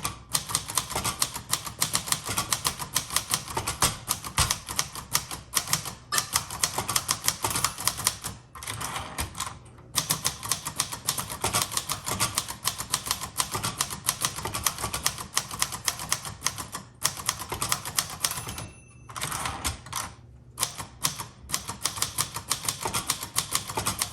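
A 1960s Singer Scholastic T4 portable typewriter, a rebadged Royal, being typed on quickly: a fast run of sharp key strikes with a few brief pauses between bursts.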